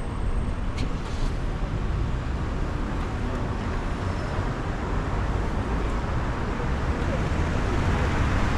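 Steady city traffic noise with a deep, continuous rumble, and a single sharp click about a second in.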